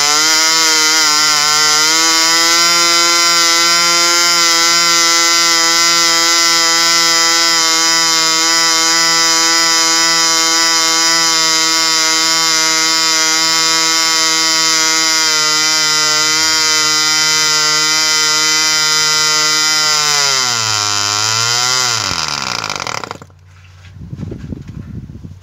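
Vintage Forster 29 two-stroke model aircraft engine on glow ignition, turning a 10x6 prop at full speed with a loud, steady high-pitched buzz. About 20 seconds in it slows, picks up once briefly, then dies about 23 seconds in, leaving light handling noise.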